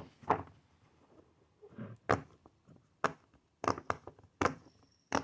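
Bubbles of a glow-in-the-dark silicone pop-it fidget toy being pressed, giving about seven short, sharp pops at an uneven pace.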